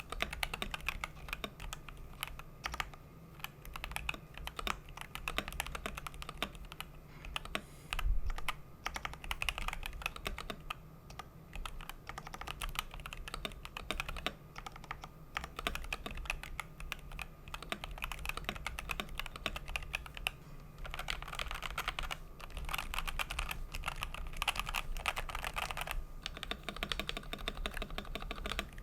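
Typing test on a CiY Tester 68 65% mechanical keyboard fitted with NovelKey NK Silk Oblivion switches and DCS-profile keycaps: a steady run of key clacks, with quicker flurries in the last third and one heavier low thump about eight seconds in.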